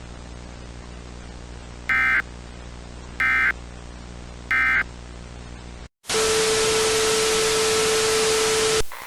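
Three short bursts of Emergency Alert System SAME data tones, the end-of-message code that closes the alert, over a low steady hum. About six seconds in the sound drops out, then loud static hiss with a steady low tone runs for about three seconds and cuts off suddenly.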